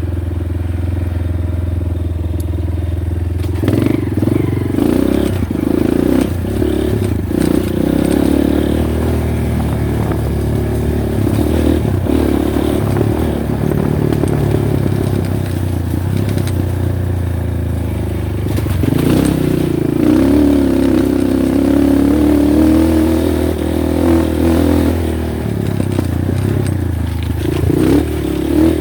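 Honda Win motorcycle engine running steadily, then from about three and a half seconds in pulling harder and shifting in pitch as the bike rides on, with occasional knocks.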